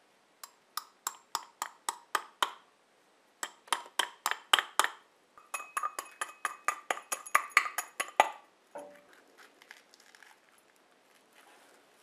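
A microwaved bath bomb knocked again and again against the rim of a glass beaker set in a glass bowl: sharp glass clinks, about four a second, in three runs, the last run faster and with the glass ringing. Near the end the knocks give way to softer crumbling and scraping as pieces break off into the glass.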